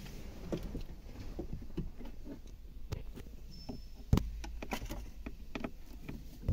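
Scattered small clicks and taps of a screwdriver working screws out of the plastic centre-console trim, with one sharp knock about four seconds in.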